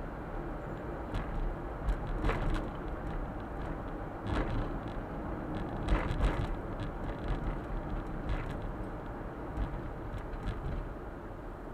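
Suzuki Super Carry kei truck driving along, with a steady low run of engine and tyre noise, picked up by a dashboard camera. Several short, sharp knocks or rattles come through it at irregular times.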